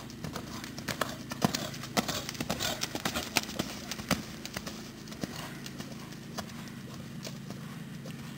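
Hoofbeats of a cantering pony on sand arena footing, growing loud as it passes close by between about one and four and a half seconds in, then fading as it moves away.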